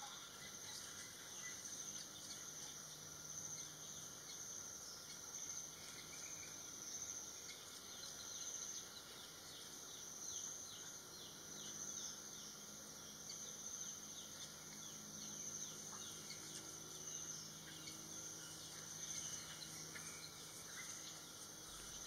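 Faint outdoor garden ambience: a steady high-pitched insect drone like crickets that swells and fades, with faint short bird chirps now and then.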